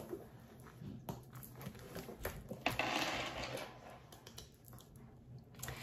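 Light handling of a handbag and card holder: scattered small clicks and taps, with a brief rustle about three seconds in.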